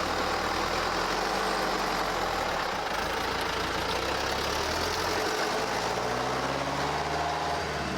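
Motor vehicle engine running steadily, its pitch rising about six seconds in.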